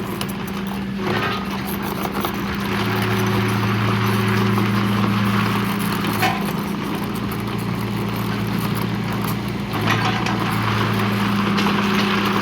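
The 3-cylinder Yanmar diesel of a 2015 IHIMER 17VXR mini excavator running steadily, with a deeper hum joining about three seconds in. A few short metallic clanks sound over it.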